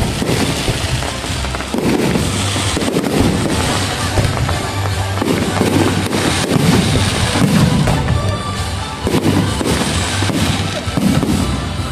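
Fireworks display: a dense, continuous string of bangs and crackles from shells bursting overhead.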